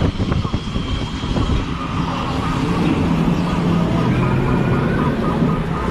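Wind buffeting the microphone of a moving electric unicycle rider, with street traffic noise. A steady low droning tone comes in about two seconds in.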